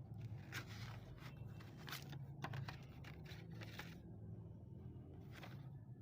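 Irregular scraping, rustling and clicking handling noises, a few each second, over a steady low hum.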